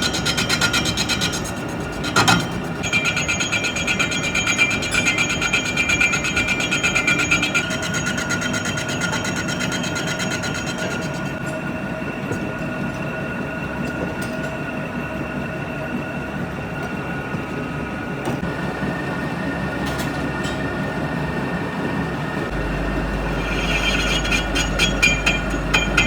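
Workshop machinery running steadily, with a fast, even clatter and a steady whine; a single knock comes about two seconds in, and the clatter fades midway and returns near the end.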